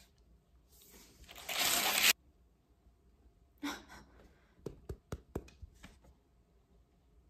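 Close handling noise: a loud rustle about a second in, a shorter one a little past halfway, then a quick run of five or six sharp taps.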